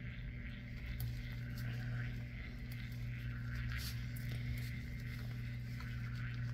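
Steady low hum of a tumbler cup turner's small electric motor running, with faint rustling of plastic gloves smoothing epoxy on the turning cup.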